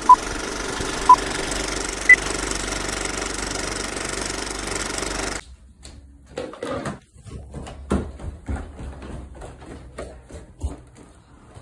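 Old-film countdown leader sound effect: a steady film-projector whirr and clatter with a short beep each second, two lower beeps then a higher one, cutting off abruptly about five seconds in. After that come quieter scattered knocks and taps from a handheld phone being carried.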